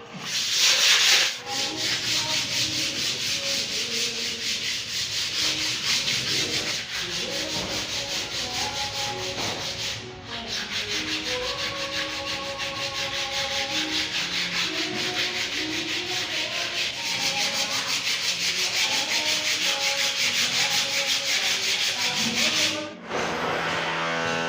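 Sanding of narra wood stair surfaces: a continuous abrasive rasp that stops and restarts a few times.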